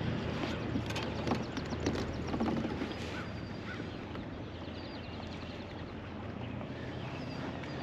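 Open-water ambience from a fishing kayak on a lake: a steady low hum of wind and water, with small birds chirping and trilling in quick high runs about two and a half and five seconds in.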